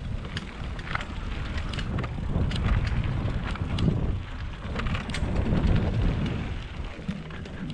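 Mountain bike riding down a dirt trail: wind rushing over the microphone and tyre rumble, with frequent short clicks and rattles.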